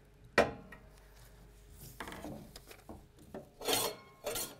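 A sharp click, then a mower's reel cylinder turned by hand, snipping and rasping through paper against the bottom blade, with two loud crisp cuts near the end. This is the paper test of the cylinder-to-bottom-blade setting, and here it gives a clean scissor cut.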